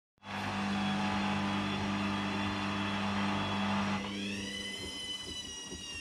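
Hoover Dynamic washing machine spinning with a steady hum and rush; about four seconds in the motor cuts out abruptly and the drum coasts down with a slowly falling whine. The spin being halted is the sudslock, the machine stopping the spin because it detects too many suds.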